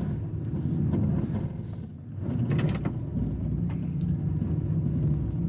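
Infiniti QX80's 5.6-litre V8 working hard on a steep climb, its note dipping about two seconds in and then rising again as the throttle opens. There are a few knocks over the engine. The SUV is struggling for grip with traction control off.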